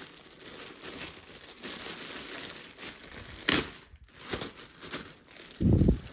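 Clear plastic bag around a new pair of jeans crinkling as it is handled and pulled open, with a sharp crackle a little past halfway and a low thump near the end.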